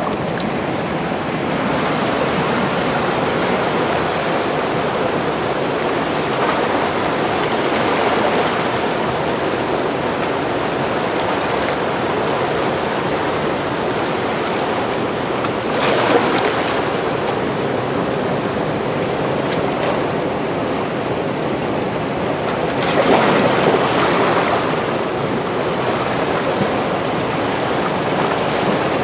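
Zambezi River whitewater rushing and churning over rocks in a steady, loud wash of water, with two brief louder surges, one just past halfway and one about three-quarters of the way through.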